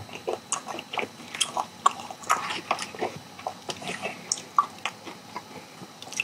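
Close-miked chewing of charcoal-grilled chicken: irregular wet mouth clicks and smacks, a few every second.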